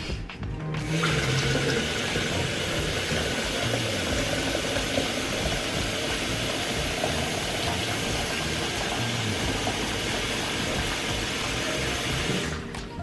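Kitchen tap running a strong stream of water into a glass jar, the water splashing and churning as the jar fills. The flow starts about a second in and is shut off shortly before the end.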